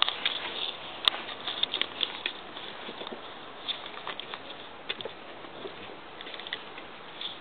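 Light, scattered rustling and clicking of Cavalier puppies moving about in wood-chip bedding. It is busier in the first couple of seconds, with one sharper click about a second in.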